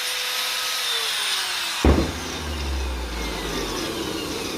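Angle grinder running under load, cutting metal, with a sharp loud knock about two seconds in followed by a low rumble.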